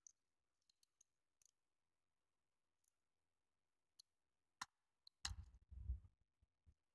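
Faint small clicks of tiny plastic model-train parts on a grey plastic runner being handled, with a sharper click a little over four and a half seconds in and a louder rubbing bump from a hand close to the microphone about five seconds in.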